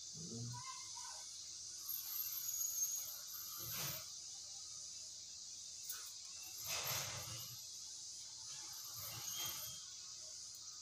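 Steady high-pitched chirring of insects, with a few faint, soft handling noises from food preparation about two, four, seven and nine seconds in.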